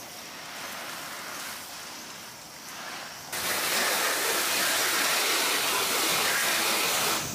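Water spraying from a hose, a steady hiss that jumps suddenly much louder about three seconds in and holds there.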